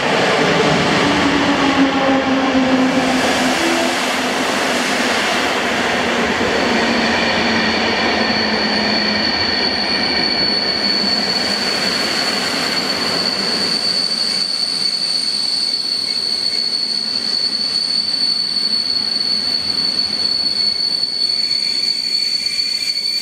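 Passenger train of EP09 electric locomotive and Intercity coaches running in and braking. A falling hum comes as it slows in the first several seconds. From about a quarter of the way in, a steady high-pitched squeal from the braking coaches takes over as they roll slowly past.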